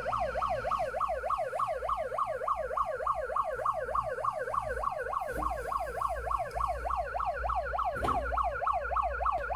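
Police siren sound effect from the small speaker of an RC scale truck's lights-and-sound kit: a fast yelp, the pitch sweeping up and down three or four times a second, over a low hum. A single click about eight seconds in.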